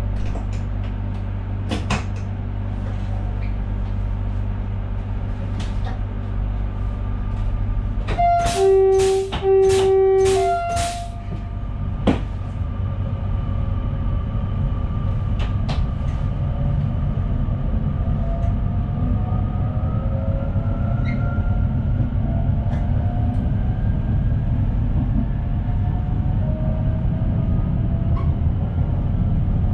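SNG electric train's two-tone horn sounded for about three seconds, about eight seconds in, in short blasts alternating a high and a low note. Under it the train runs with a steady low rumble, and a faint rising whine comes in later.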